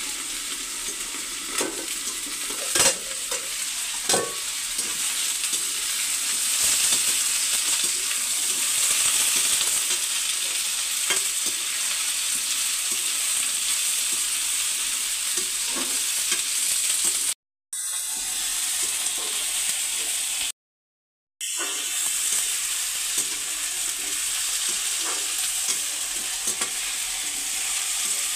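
Chopped brinjal and potato sizzling steadily as they fry in oil in a steel kadhai, stirred with a metal spatula. There are a couple of sharp knocks about three and four seconds in, and the sound drops out completely twice for a moment in the second half.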